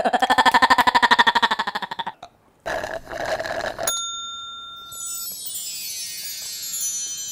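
A man's strained, rapidly wavering grunt of effort, rising in pitch, as he twists open a small bottle cap. About three seconds in comes a brief rush of noise, then a twinkling sparkle chime effect whose bell-like tones cascade downward and ring on.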